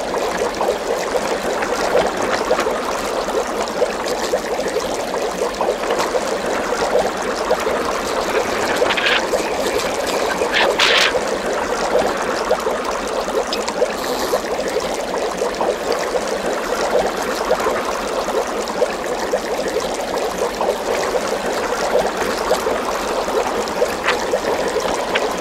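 Steady trickling, bubbling water sound, even in level throughout, with a few brief faint higher streaks about ten seconds in.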